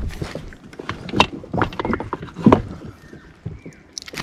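Irregular knocks and thumps, the loudest about a second in and about two and a half seconds in.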